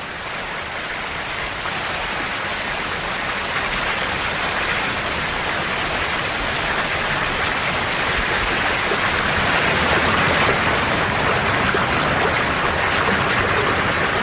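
Steady rushing of river water over rapids, a continuous hiss that grows gradually louder.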